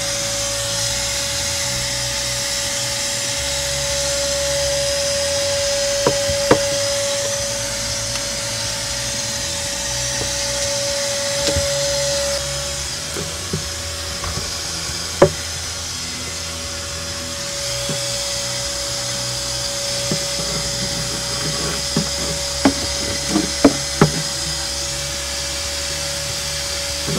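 An electric tool's motor running steadily with a high hum, while wood knocks and clatters now and then, most often near the end.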